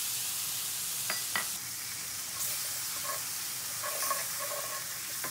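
Hot pan sizzling as lemon juice goes in over parsley, garlic and oregano in rendered chicken fat. Two sharp clicks come about a second in, then a wooden spoon stirs and scrapes across the pan bottom.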